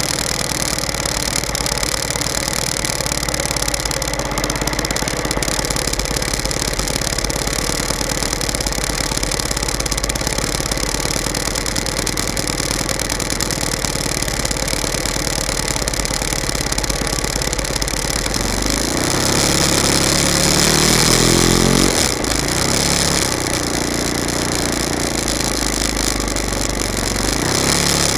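Small engine of a radio-controlled model airplane running at idle, heard close up from a camera on the airframe. About two-thirds of the way in it revs up for a few seconds, rising and wavering in pitch, then drops back to idle. It begins to pick up again near the end.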